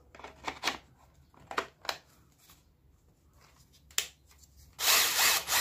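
Plastic clicks and knocks of a Parkside 20 V cordless drill being handled and its battery clicked into place, then near the end the drill motor run briefly, for under a second.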